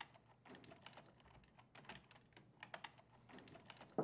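Typing on a computer keyboard: quick, irregular key clicks. A single louder thump comes right at the end.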